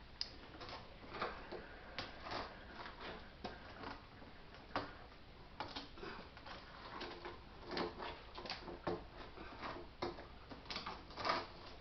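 Irregular light clicks and knocks of small objects being handled, about one or two a second, with a small cluster of louder knocks near the end.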